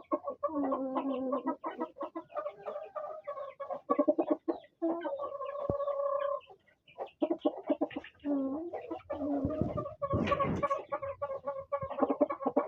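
Chickens clucking in a run of short, pitched calls, with a brief noisy burst about ten seconds in.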